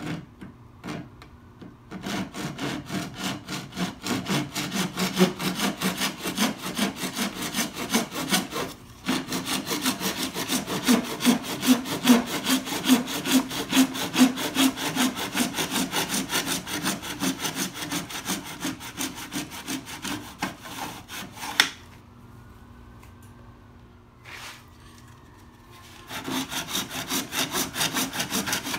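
Handsaw cutting a slot into 3-inch Schedule 40 ABS plastic pipe with quick, even back-and-forth strokes. The sawing breaks off briefly near the middle, ends with a single knock, and starts again after a pause of about four seconds near the end.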